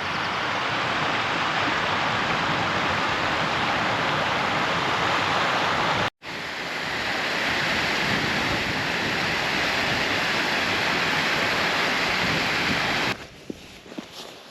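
Steady loud rush of running water, like a fast stream, cutting out abruptly about six seconds in and then resuming. Near the end it drops away to faint footsteps.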